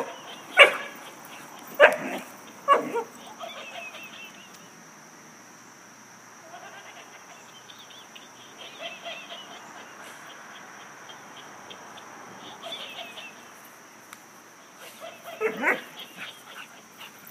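Airedale Terrier barking in three sharp barks in the first three seconds and again about fifteen seconds in. In between, a fainter wavering chatter runs on, typical of a laughing monkey toy's recorded laughter.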